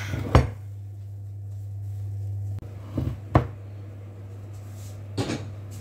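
A baking dish and the oven being handled in a kitchen: a few sharp knocks and clanks, the loudest just after the start, two close together about three seconds in and one near the end, over a steady low hum.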